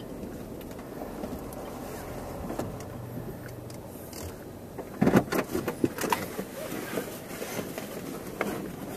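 Steady hum of a car heard from inside the cabin, then from about five seconds in a run of sharp clicks and knocks.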